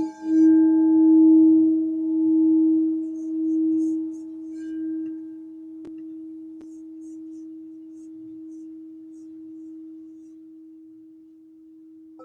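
Crystal singing bowl ringing one low, steady tone with a wavering pulse, loud at first and slowly fading. Two faint clicks come about halfway through.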